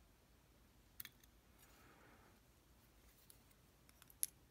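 Near silence broken by two small sharp clicks, one about a second in and a louder one near the end: tiny brass lock pins being handled and set down while they are sorted.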